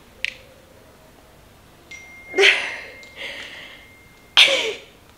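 A woman's two short excited vocal outbursts, laughing cries, about two and a half and four and a half seconds in.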